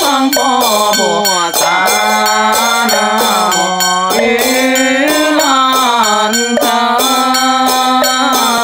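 Chinese Buddhist liturgical music: a slow melody of long, gliding held notes over a steady beat.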